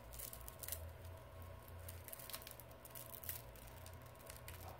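Faint crackling and scattered sharp ticks as the cracked glass-and-LCD screen of a Samsung Galaxy S7 Edge is peeled off the frame's adhesive by hand, over a low steady hum.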